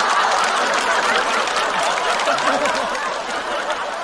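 Studio audience laughing and applauding after a punchline, the crowd noise slowly dying down.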